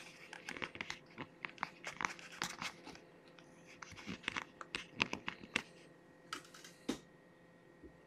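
Paper towel rustling and crinkling as it is handled on a table, with a quick run of small crackles and taps that thins out after about six seconds.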